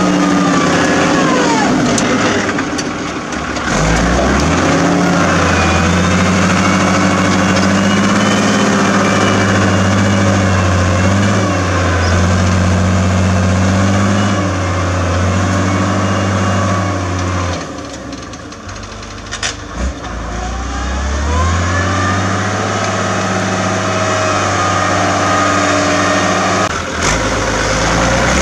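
Agrifull 100DT tractor's diesel engine working under load as it pulls a five-shank subsoiler through the soil, with a loud, steady exhaust note. The sound drops away for a few seconds about two-thirds through, then rises again.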